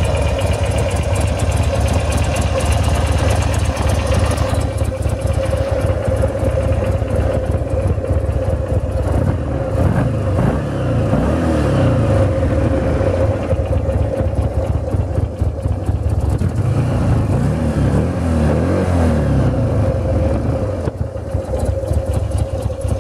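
Buell XB9S Lightning's air-cooled V-twin engine idling, revved up and back down twice, once around the middle and again near the end.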